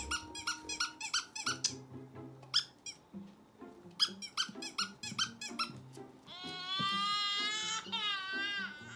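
A squeaky toy squeaking in quick repeated squeaks, about four a second at first and then more sparsely, over background music. From about six seconds in, a long, high, wavering whine takes over for nearly three seconds.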